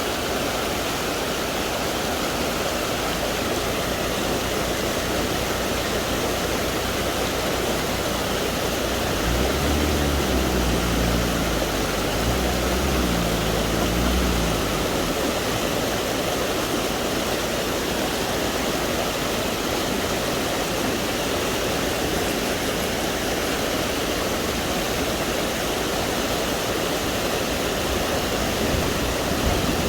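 Steady rush of a waterfall. About a third of the way in, a low engine note rises and falls for a few seconds.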